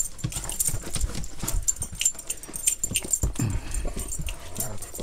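Pet dogs moving about close at hand while being petted, with many small clicks and scuffles throughout.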